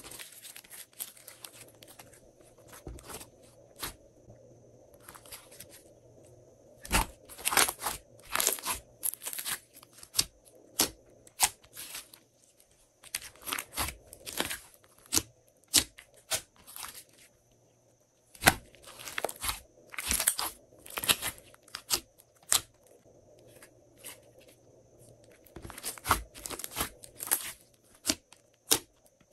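Hands squishing and stretching glossy slime, making irregular sticky clicks and pops that come in clusters with short pauses between.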